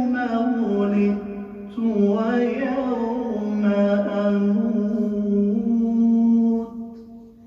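A man's solo melodic Qur'an recitation, drawn out in long held notes that slowly bend in pitch. There is a short break about a second in, and the last note trails off near the end.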